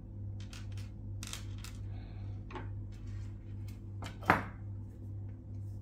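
Small clicks and rustles of fishing tackle, line, hooks and a lead sinker, being handled on a wooden tabletop, with one sharper knock a little after four seconds in. A steady low hum runs underneath.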